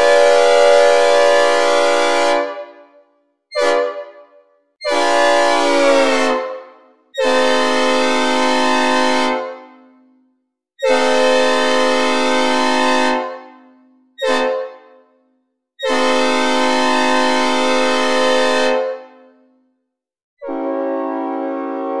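Synthesized recreation of a Nathan P5A "Old Cast" five-chime train horn sounding a chord in a series of blasts: mostly long blasts of two to three seconds, with two short toots among them and another long blast starting near the end. Some blasts sag in pitch as they are released.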